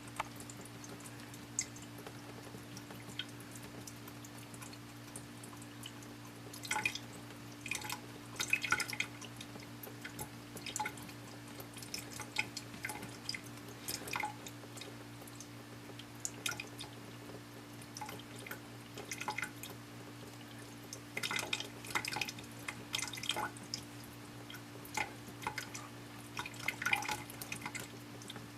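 Water dripping: faint, irregular drops over a steady low hum.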